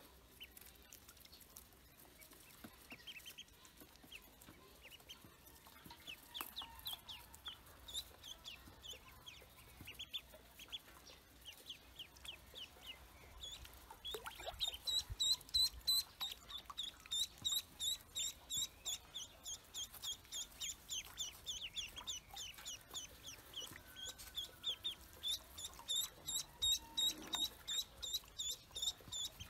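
Pekin ducklings peeping: short high peeps, sparse at first, then a dense, louder run of several peeps a second from about halfway through.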